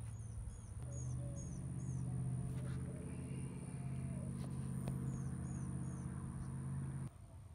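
A steady low droning hum of several tones, which cuts off suddenly near the end. Small birds chirp briefly several times over it, in two short runs.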